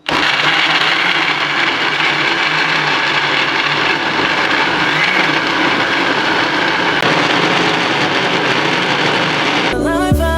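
Electric blender running, blending chopped mango and banana into fruit juice: it starts suddenly and runs at a steady level for nearly ten seconds, then cuts off as music comes in near the end.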